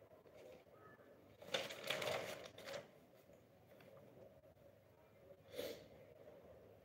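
Sheets of handwritten paper notes rustling as they are turned and shuffled, in a cluster of crackles about a second and a half in, then one shorter rustle near the end.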